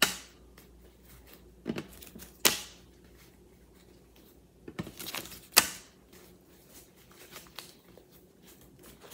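US ten-dollar bills being counted by hand, flicked off the stack one by one with light ticks and rustles. Several sharp snaps stand out, the loudest about two and a half and five and a half seconds in.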